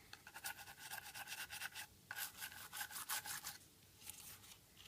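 Old toothbrush scrubbing an iPhone 5's connectors with isopropyl alcohol: quick, scratchy back-and-forth strokes of the bristles, with a short pause about two seconds in, dying away near the end.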